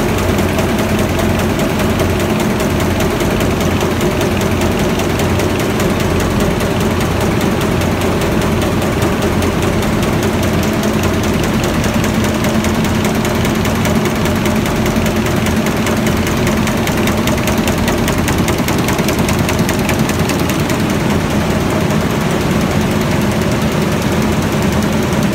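Raschel warp knitting machine running at speed: a loud, steady, very fast mechanical clatter with a steady hum underneath.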